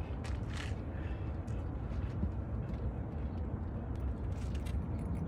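Steady low rumble of wind buffeting the microphone on an outdoor walk, with a few faint crunching footsteps on the trail near the start and again near the end.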